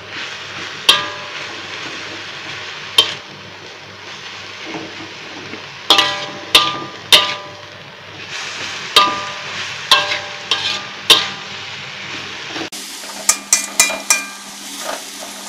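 A spatula scrapes and knocks against a steel wok while grated coconut and spice paste fry with a steady sizzle. About a dozen sharp, ringing metal strikes fall at irregular intervals as the mixture is stirred and turned.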